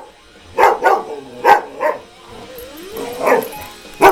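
Dog barking repeatedly, about five sharp barks, some in quick pairs, over an acoustic guitar playing.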